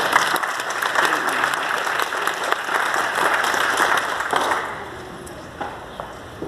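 Congregation applauding: dense clapping that dies away about four and a half seconds in, leaving a few last claps.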